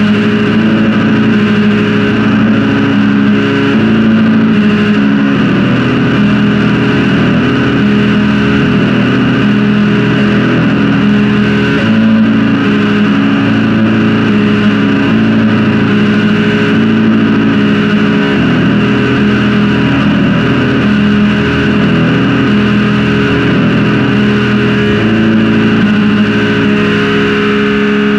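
Raw black metal music: a wall of heavily distorted electric guitar holding long chords that change about every six seconds.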